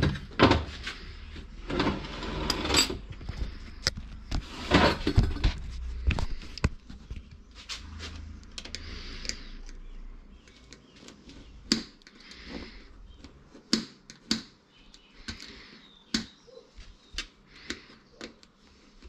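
Irregular clicks, knocks and short scrapes of small tools and metal parts being handled on a workbench, busier in the first half and sparser after.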